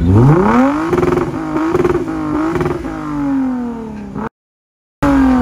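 Lexus IS sedan's engine revved through its exhaust: the pitch climbs quickly, holds high with a few small blips for about two seconds, then falls back. The sound cuts out completely for a moment near the end and comes back on another falling rev.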